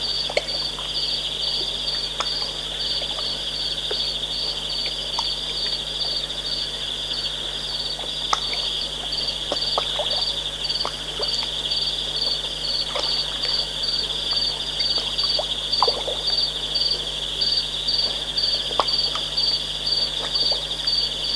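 Night chorus of insects and frogs: a steady high trill with a regular pulsed call about twice a second over it, and scattered short, lower sounds.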